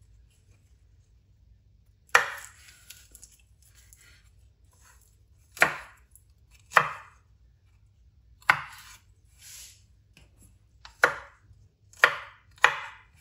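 Kitchen knife chopping bundles of okra pods on a wooden cutting board: seven sharp cuts at uneven intervals, the first about two seconds in.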